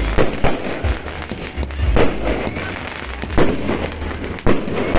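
Aerial fireworks bursting: a series of sharp booms, about one a second, over a continuous crackling background.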